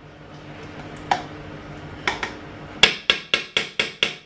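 A metal spoon scraping the last of the tomato paste from a small tin, with a few separate clinks, then tapped quickly against the rim of the cooking pot about five times a second near the end to knock the paste off the spoon.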